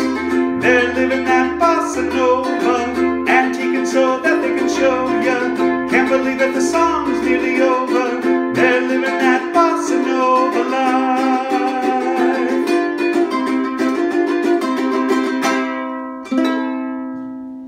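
Background music that ends on a final chord near the end, which rings out and fades.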